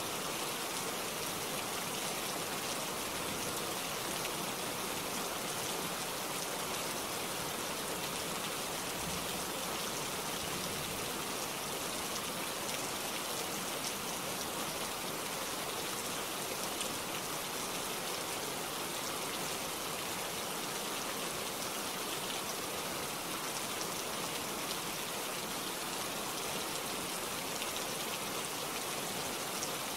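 Steady rain falling: an even, unbroken hiss of many drops with no change in strength.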